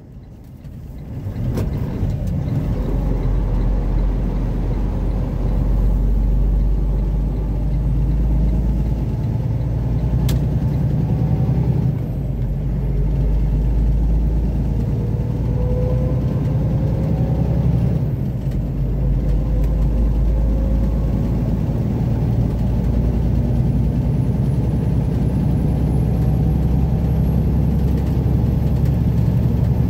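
Truck engine heard from inside the cab, pulling away and accelerating from a stop, the rumble rising over the first couple of seconds, then running steadily at speed. The level dips briefly a couple of times, and there is a single sharp click about ten seconds in.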